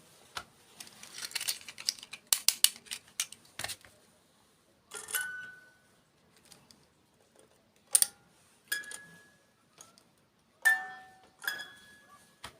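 Packaging crinkling and clicking, then a handful of separate knocks on hard dessert containers, several of which ring briefly with a clear tone.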